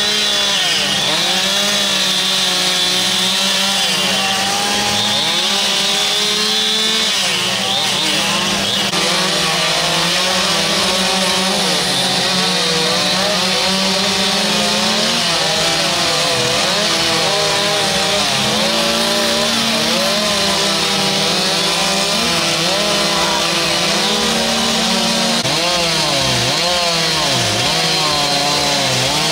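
Several chainsaws carving wood together, their engines revving up and down unevenly so that the pitches rise and fall and overlap.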